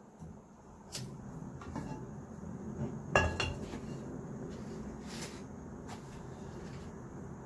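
Cookware and utensils clinking and knocking several times, the loudest knock about three seconds in, over a steady low background noise.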